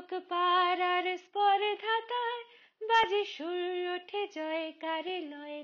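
A single high voice, like a woman's, singing a melody unaccompanied, in held notes with short gaps between phrases.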